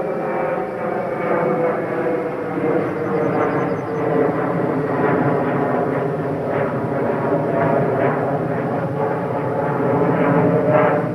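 Cold War-era electronic mobile warning siren sounding the German ABC-Alarm test signal: a loud, harsh held note with many overtones that drifts slightly in pitch, over a rough, steady rumble.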